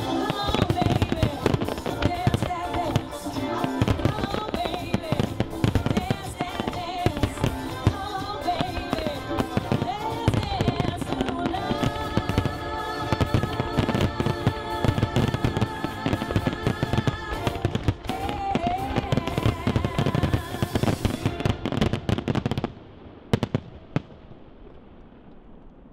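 Fireworks display: a dense barrage of shell bursts and launches banging and crackling over music. About 23 seconds in the barrage stops abruptly, with one last bang and a fading tail.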